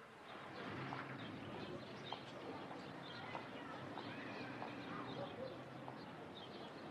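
Many small birds chirping and twittering, fading in over the first second and then continuing steadily.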